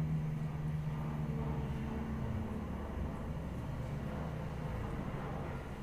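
Steady low background rumble. A low hum within it dies away about two seconds in.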